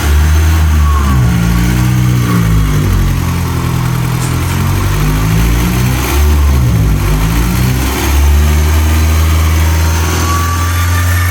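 Honda S2000 AP1's F20C four-cylinder engine running at low speed, revs rising and falling, with a thin high whistle from a worn pulley bearing that becomes clear and steady near the end.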